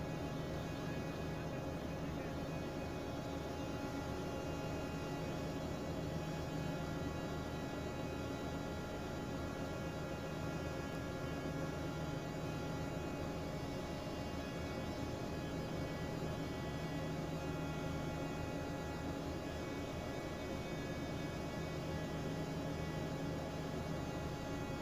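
Steady machinery hum of a ship's engine room, an even drone with many held tones that does not change.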